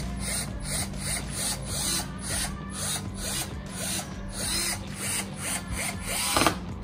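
Compact cordless drill-driver driving screws to fix a plastic diffuser onto a car bumper, with a steady motor hum and a run of repeated clicks.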